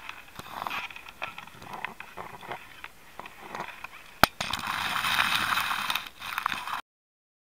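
Taped camera and fiber pulling assembly dragging through a conduit: scraping and rubbing against the conduit wall with scattered clicks and knocks. A sharp knock comes about four seconds in, followed by louder, steadier scraping that cuts off abruptly near the end.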